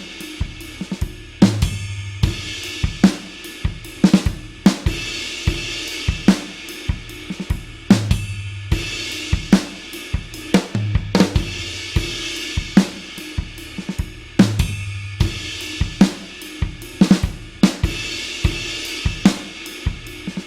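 Rock drum kit playing a steady beat of kick drum, snare and hi-hat with cymbal hits. The short pattern repeats about every three seconds.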